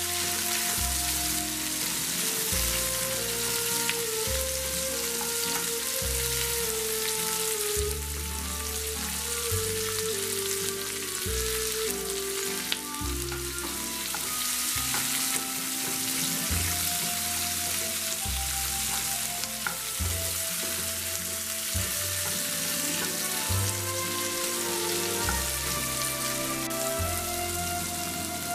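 Vegetables sizzling in hot oil in a frying pan while being stirred with a wooden spoon, with background music and a steady bass line underneath.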